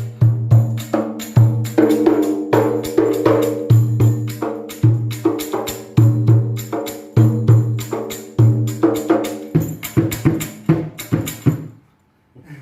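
Rapai, the Acehnese hand-struck frame drum with metal jingles, played in a fast rhythmic pattern: deep open strokes mixed with sharper slaps, the jingles rattling on every hit. The playing stops just before the end.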